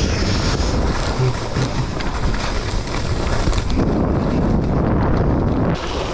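Wind buffeting the microphone with a steady, loud rush, mixed with the hiss of skis sliding over snow on a downhill run.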